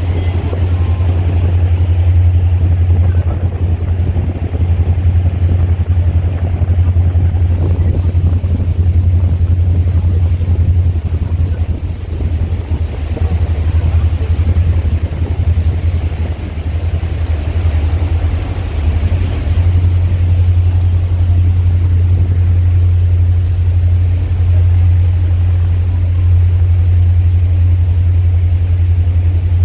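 Loud, steady low rumble of a boat underway, its engine running and water and wind noise rushing over it, with no breaks.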